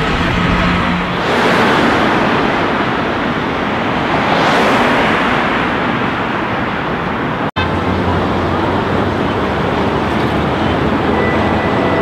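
Road traffic: two cars pass a few seconds apart, each a swell of tyre and engine noise. After a sudden momentary dropout, a steadier traffic rumble follows.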